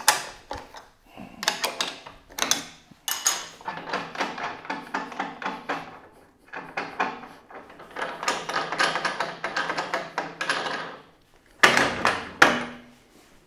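Metal clanking, rattling and sliding as the old table-saw fence's clamps and fittings are loosened and the fence is worked off the saw's sliding table. The knocks are irregular throughout, with a denser stretch of rattling in the later half and a burst of louder clatter near the end.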